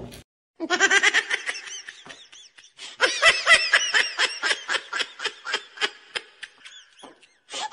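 High-pitched children's giggling: rapid laughs of about four or five a second, in two long stretches split by a short pause about two seconds in.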